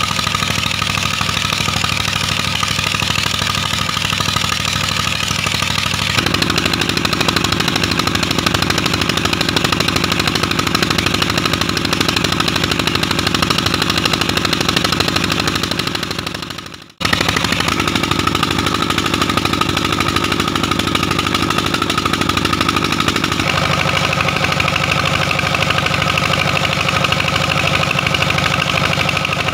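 Petter 23 hp diesel engine running steadily under load, belt-driving a water pump, with a fast even exhaust beat. The sound fades out and cuts back in a little past halfway.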